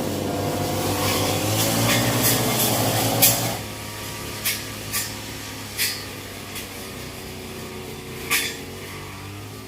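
A small motor running steadily with a hiss over it, the hiss stopping about three and a half seconds in; several sharp clicks follow.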